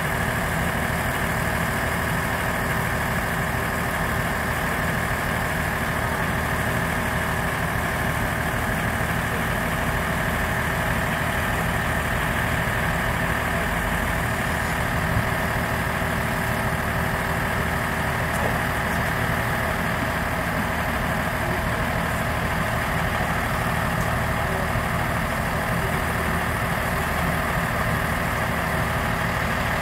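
A diesel railcar's engine idling steadily: a low, even hum with a fainter drone higher up that does not change.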